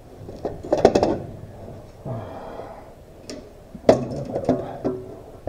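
Scattered clicks and knocks of hands and tools working on metal parts at the base of a tractor's shift lever, with the sharpest knock a little before four seconds in.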